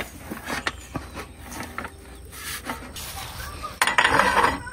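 A portable butane camp stove being handled on a folding table: a few light knocks and taps, then a short clatter near the end as a frying pan is set down on its metal burner grate.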